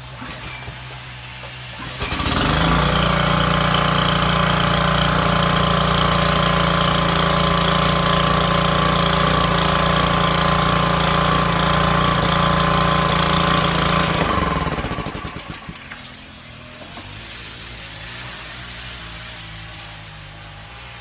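Pressure washer running steadily for about twelve seconds while drawing its water by suction from a bucket, trying to prime its intake hose. It starts abruptly and then shuts off.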